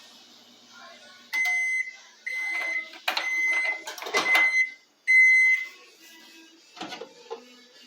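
Microwave oven beeper sounding five steady, high beeps about a second apart, which signal that the heating cycle has finished. Knocking and handling noise comes during the middle beeps, and a short knock comes near the end.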